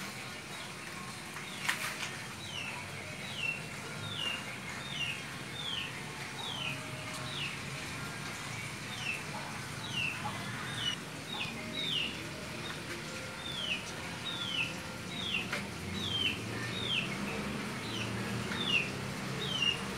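A bird calling over and over: a short, high, falling note repeated one to two times a second. A single sharp click sounds about two seconds in.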